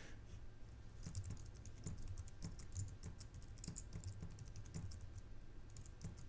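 Computer keyboard typing, faint: a quick run of keystrokes with a brief pause near the end.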